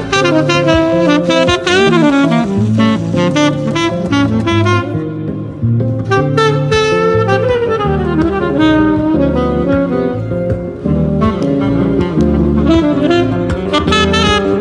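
Yamaha 82ZB tenor saxophone with a JodyJazz DV metal mouthpiece playing a fast jazz solo line, with quick runs and slides between notes.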